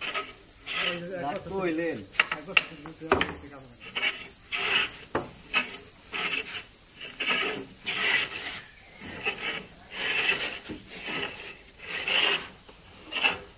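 Crickets shrilling steadily. Rhythmic scraping strokes of woodwork come about twice a second, with a few sharp knocks.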